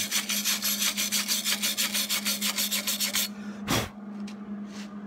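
Steel wire brush scrubbing flux slag off a fresh flux-core weld bead on rusty steel plate, in fast back-and-forth strokes that stop about three seconds in, followed by a single thump.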